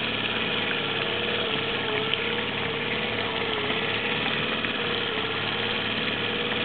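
Boat motor idling steadily, with a slightly wavering hum.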